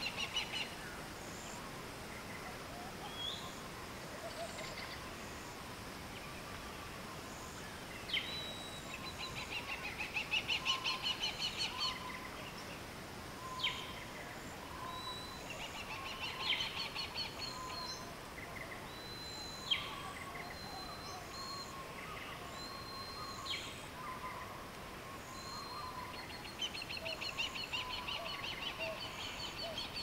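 Wild birds calling in tropical bushland: rapid chattering runs of quick high notes come and go three times, with a few sharp single whistled notes between them. Underneath is a faint steady natural background.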